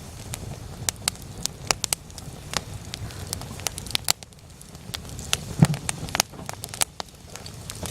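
Wood fire crackling: irregular sharp pops and snaps over a low steady rumble, with the loudest pop a little past halfway.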